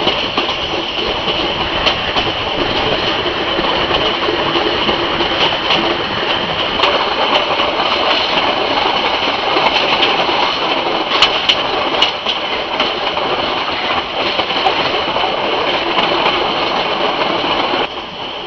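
Burmese metre-gauge passenger train running along the line, heard from an open carriage window: a steady rattling rumble with scattered sharp clicks. It drops in level shortly before the end.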